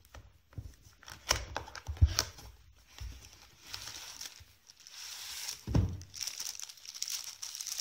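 A keyboard sealed in a clear plastic bag being pulled out of its cardboard box: a few short knocks of the box and flap, then the plastic crinkling, with a dull thump a little before six seconds in as the keyboard comes down on the table.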